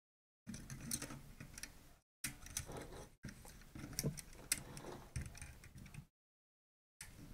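Light clicks and scrapes of needle-nose pliers and fingers working a small plug connector loose from a camera's main circuit board. They come in three stretches of irregular ticking and stop about six seconds in.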